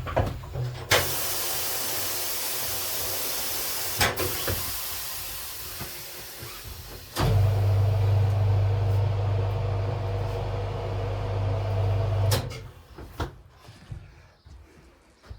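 Air rushing out of a punctured car tyre in a loud hiss that starts with a sharp click and slowly dies away as the tyre deflates. Then a machine's electric motor starts suddenly, hums steadily for about five seconds and cuts off.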